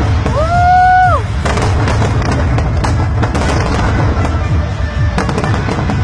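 Fireworks display: a constant low rumble of bursts with sharp crackles and bangs. About half a second in, a loud whistle rises, holds for about a second and drops away.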